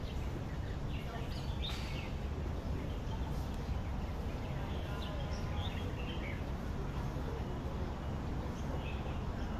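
Outdoor ambience: a steady low rumble with small birds chirping now and then, and faint voices.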